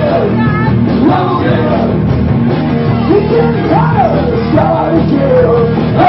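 Live rock band playing loud, a male singer singing into a microphone over drums and guitar.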